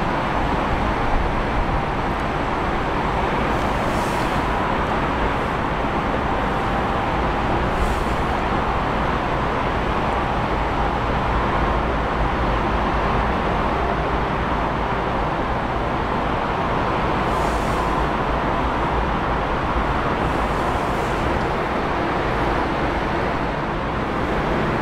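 Steady rumble and roar of jet engines from cargo airliners taxiing at low power, with a faint whine.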